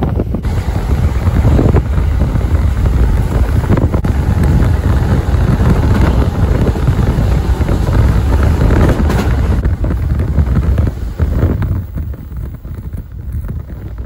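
Running noise of the B.B.BASE train heard from inside the carriage at speed: a loud, steady rumble of wheels on rails with a rushing noise. It grows quieter in the last few seconds.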